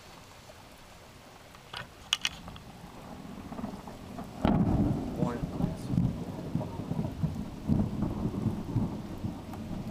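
Steady rain, then thunder from a close lightning strike: a low rumble builds from about three seconds in, breaks into a loud clap about halfway, and keeps rolling and rumbling.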